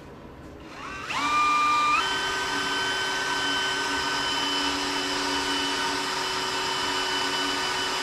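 Electric drill boring a small hole into the transmission bellhousing beside an alignment dowel, for a set screw that locks the dowel in place. About a second in it spins up with a rising whine, then runs steadily under load.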